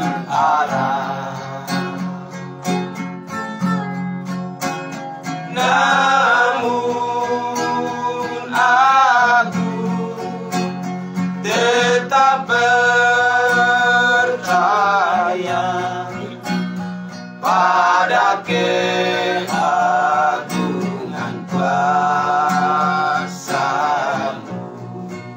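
A small group of men singing together in long held phrases, over a plucked string accompaniment.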